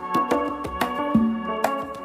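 Background music with a steady beat over sustained instrumental tones.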